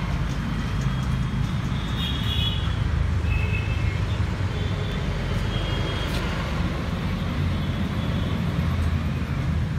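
Steady low rumble of road traffic, with a few faint short higher-pitched sounds over it.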